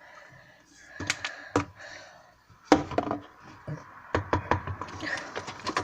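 Handling slime and its containers while talcum powder is added and worked in: a run of sharp taps and clicks, sparse at first and coming faster in the second half.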